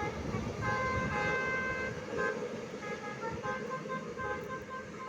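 Multi-tone 'telolet' musical horn of a Tunggal Jaya bus playing a melody of short and held notes, over the bus's low engine rumble.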